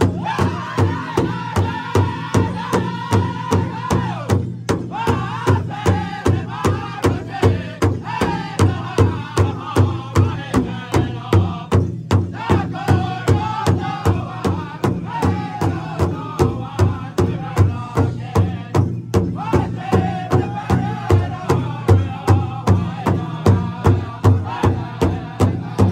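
Powwow drum group singing in high voices over a large hide-covered drum that several drummers strike together in a steady, even beat. The singing pauses briefly a few times while the drumbeat carries on.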